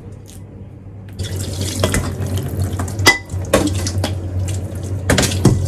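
Kitchen mixer tap water starting about a second in and running into a stainless steel sink over a stainless steel pot as it is rinsed, with a few sharp clinks of the pot being handled.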